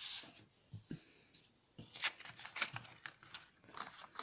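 Paper and playing cards handled on a wooden tabletop: a short rustle of the paper cover sliding at the start, then scattered light taps, clicks and scrapes as the tarot card stack is picked up and its cover slipped aside.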